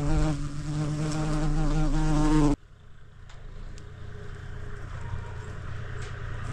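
A flying insect, fly-like, buzzing close by in a steady, slightly wavering drone. The buzz cuts off abruptly about two and a half seconds in, leaving a much quieter background with a few faint clicks.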